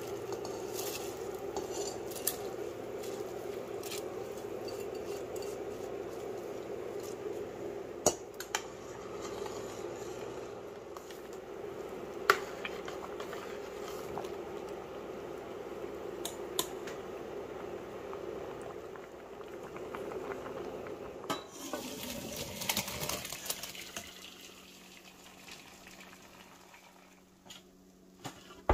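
Basmati rice boiling in a stainless steel pot of water, a steady bubbling, while a metal spoon stirs it and clinks against the pot a few times. Near the end the bubbling stops and it goes quieter.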